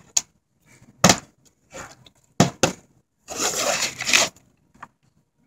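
Thin plastic water bottle being crinkled and crushed in the hands: a few sharp crackles, then about a second of continuous crackling.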